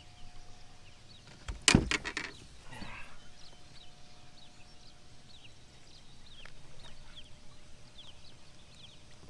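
A heavy thump and a few quick knocks against a fishing boat's side about two seconds in, then a brief splash of water, as a big freshwater drum of about 18 to 20 pounds is held over the gunwale for release. Faint short high chirps are scattered through the rest.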